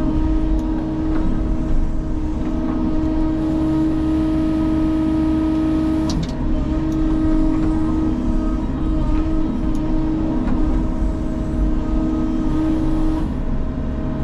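Sany excavator's diesel engine and hydraulics running steadily under load, heard from inside the cab. The pitch sags briefly about six seconds in and again near the end, with a few sharp knocks at the first dip.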